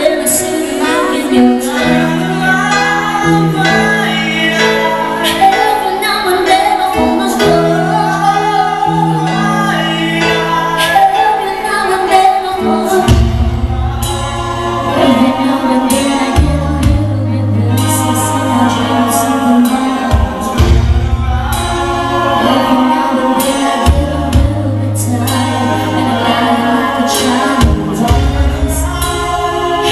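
A woman singing a song into a microphone over musical accompaniment, heard live through the club's sound system. A strong bass line comes in about 13 seconds in and the accompaniment grows fuller.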